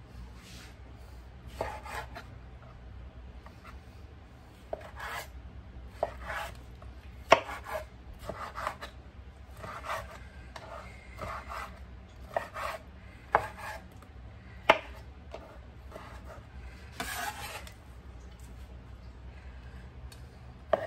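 Knife chopping food on a cutting board in irregular strokes, some with a scraping sound, about once a second. A few sharper knocks come in the middle, over a faint steady hum.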